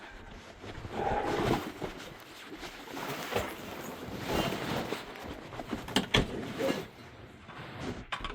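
Irregular knocks, clatters and scraping from timber framing being handled and worked apart, with two sharp knocks about six seconds in.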